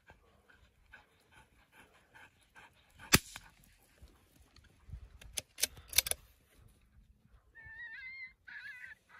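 Dog whining in high, wavering whimpers near the end. Before that come a few short, sharp cracks, the loudest about three seconds in and a quick cluster around five and six seconds.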